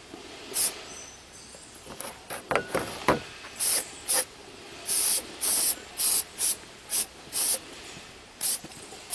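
Aerosol can of carburetor cleaner sprayed onto a small-engine carburetor in about a dozen short bursts, each a quick hiss. A few light knocks come about three seconds in.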